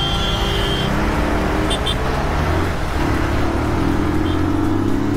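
Motorcycle engine accelerating, its pitch rising, dropping about three seconds in, then rising again, over a steady rush of wind and road noise.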